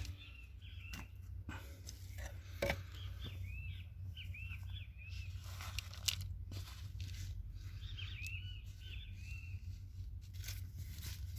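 Small birds chirping in repeated short, arched notes in several bouts, over a steady low rumble, with a few scattered sharp clicks.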